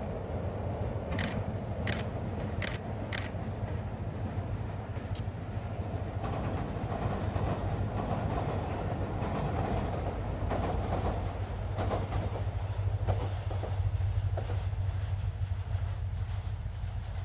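Diesel-hauled Mugunghwa-ho passenger train crossing a steel railway bridge: a steady low rumble from the locomotive and wheels, with faint clacks of the wheels over rail joints through the middle. Several sharp clicks come in the first few seconds.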